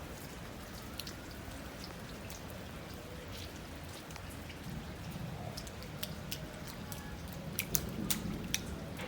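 Rain falling steadily, with scattered sharp ticks of drops landing close by and a few louder ones near the end.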